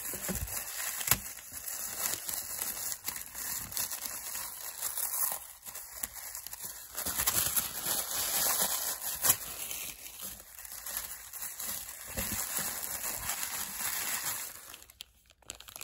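Tin foil crinkling and tearing as an advent calendar compartment is picked open, a continuous run of small crackles that dies away near the end.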